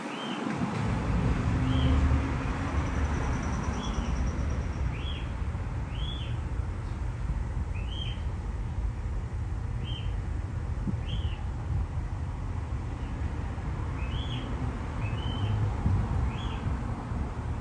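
A bird calling a short rising-and-falling note over and over, roughly once a second, over a steady low rumble of wind on the microphone.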